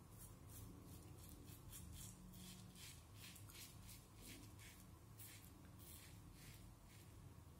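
Edwin Jagger double-edge safety razor with a Derby Extra blade scraping through lathered stubble on the first pass, faint and rasping, in short repeated strokes a couple of times a second.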